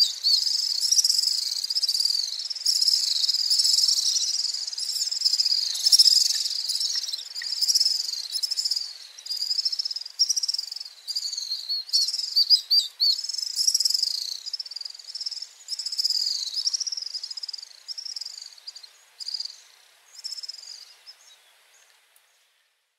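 House swifts giving their high-pitched trilling, twittering calls, phrase after phrase in quick succession, thinning out and fading away just before the end.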